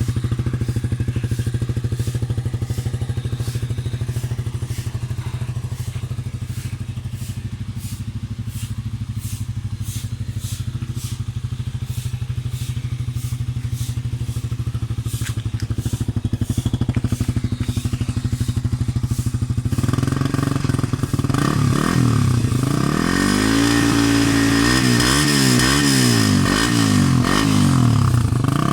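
Suzuki Raider 150 Fi motorcycle's single-cylinder four-stroke engine running through an aftermarket Reborn canister muffler. It idles steadily for about twenty seconds, then is revved up and down several times.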